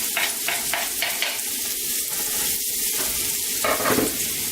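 Finely chopped garlic sizzling in melted butter in a frying pan, with a few quick stirring strokes in about the first second and a half.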